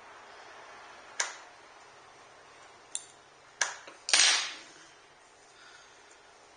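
Small containers and packaging being handled on a table: a few separate sharp clicks and knocks, the last and loudest a brief scraping rustle about four seconds in.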